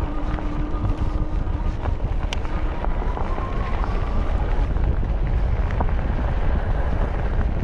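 Wind buffeting the microphone over a low, steady rumble of fat tyres while riding an e-bike. A faint motor whine fades out about halfway through, and there are a few small clicks.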